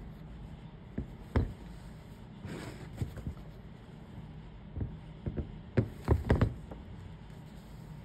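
Leather boots handled and put down on a wooden board: scattered light knocks and a brief rustle, then a quick cluster of louder knocks as the pair is set down side by side.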